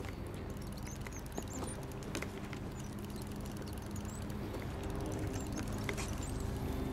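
Steady low outdoor hum with faint scattered clicks and taps and a few small high chirps.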